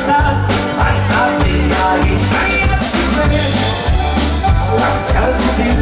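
Music with drums, bass and a steady beat.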